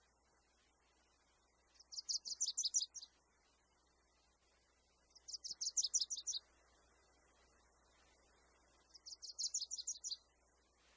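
A bird singing three short phrases a few seconds apart, each a quick, high-pitched trill of repeated notes lasting about a second.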